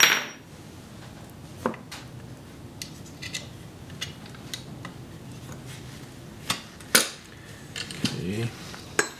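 Small metal parts of a Sheridan Streak air rifle's pump lever clicking and tapping as they are handled and lined up for a pin. There are sharp clicks at the very start, a couple of clicks around seven seconds in, and another just before the end.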